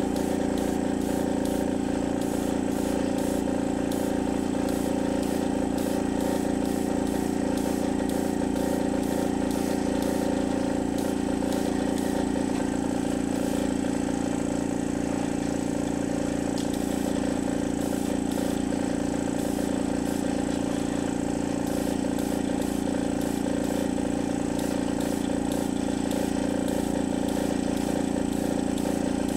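Small air compressor running steadily to supply an airbrush, giving an even motor hum that does not change.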